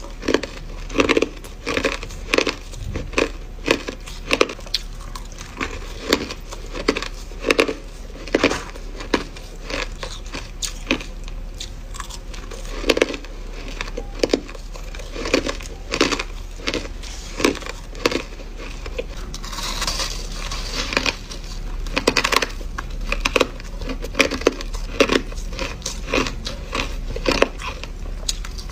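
Crushed ice being bitten and chewed: a continuous run of crisp, separate crunches, roughly two a second.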